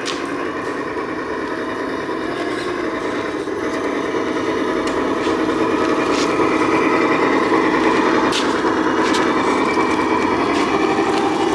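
Homemade 1/6-scale RC truck's small motor and gearbox running with a steady whine, growing a little louder about halfway through, with a few sharp clicks.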